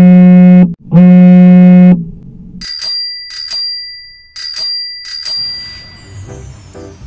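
Intro sound effects: two loud buzzer blasts, then a bell ringing in quick double strikes about four times, like a bicycle-bell notification chime.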